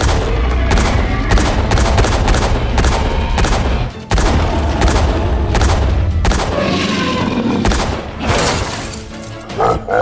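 Rapid gunfire sound effects: a quick string of shots over a booming low rumble and background music. They break off for a moment about four seconds in and thin out near the end.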